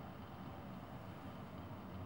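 Exotic shorthair cat purring, a steady low rumble.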